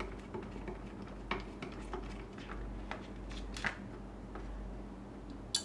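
Faint, scattered clicks and scrapes of a small screwdriver working the screws that hold the LCR meter's circuit board, with a sharper click just before the end.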